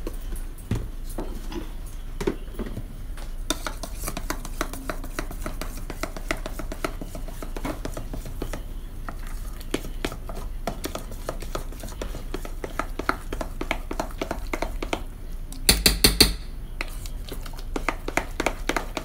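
Metal spoon stirring and scraping thick flour batter in a stainless steel mixing bowl: rapid clicks and scrapes of metal on metal as the flour is worked in. A short, louder clatter comes near the end.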